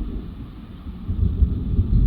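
Thunder rolling: a low rumble that swells sharply about a second in.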